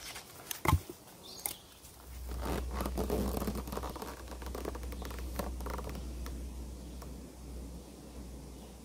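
A sharp wooden knock about a second in, then scratchy rustling in dry leaf litter over a steady low rumble that fades near the end.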